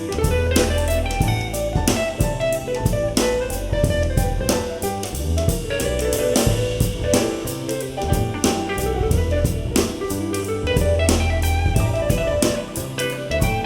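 Instrumental soul-jazz music: drum kit keeping a steady beat under a bass line and guitar.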